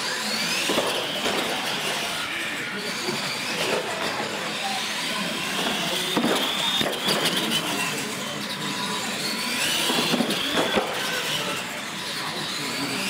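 Electric R/C monster trucks racing on a concrete floor: motor whine that rises and falls in pitch over a steady rumble of tyres and drivetrain, with a few sharp knocks and clatters along the way.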